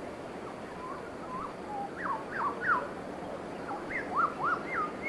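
Birds calling in the open: a string of short whistled notes, each sliding up or down, sparse at first and then coming quickly after about two seconds, over a steady background hiss.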